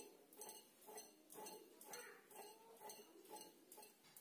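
Faint kerokan scraping: a hand-held tool drawn over the skin of a man's neck and shoulder in short, even strokes, about two to three a second.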